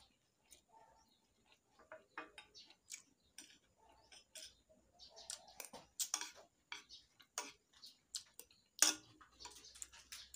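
Close eating sounds: a person chewing and smacking on raw onion and ginger with rice, with a metal spoon clicking and scraping on ceramic plates in irregular short clicks, the loudest about nine seconds in.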